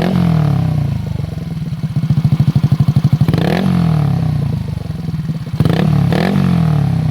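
Yamaha Mio Soul i 125 scooter's single-cylinder engine, built with a big-valve head, 59 mm dome piston and 8.0 mm-lift cam, running through an aftermarket SC Project exhaust. The engine is revved in quick throttle blips: one at the start, one near the middle and two close together near the end. Each blip falls back to a lumpy, pulsing idle.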